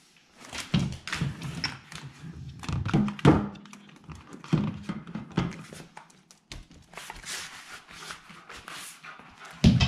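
Wobble Wag Giggle ball knocked and rolled around a wooden floor by a fox terrier puppy: irregular thumps and scuffles of the ball and paws, with the toy's brief warbling giggle tones.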